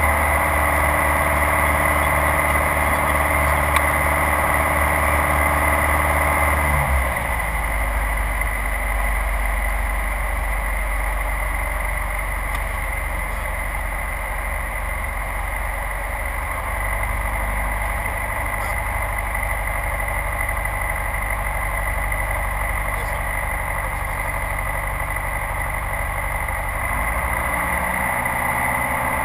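Light aircraft's piston engine and propeller droning steadily in the cabin. About seven seconds in the engine note drops to a lower pitch and slightly quieter, and near the end it rises again.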